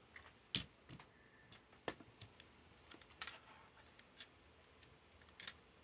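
Scattered light plastic clicks and taps as a silver RC Mecha-Dog toy robot is handled on a wooden floor, the clearest a little after half a second in and around two and three seconds.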